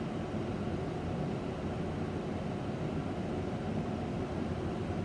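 Steady low background hum of room air handling, with no distinct events.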